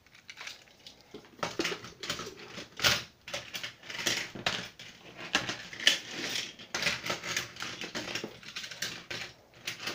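Plastic TrackMaster toy engines and cars clattering and clicking against each other and the tabletop as they are set down and shuffled around. The knocks start about half a second in and come in a quick, irregular run.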